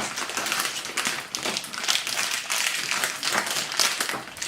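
Plastic blind-bag packaging crinkling and crackling steadily as it is handled.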